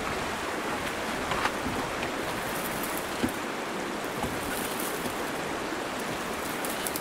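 Steady rushing of a creek, with a few faint knocks as a dirt bike is shimmied onto a hitch-mounted carrier.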